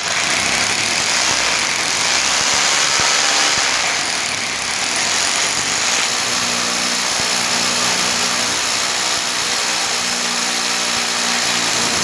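Electric drill boring a hole into a concrete ceiling, running steadily under load.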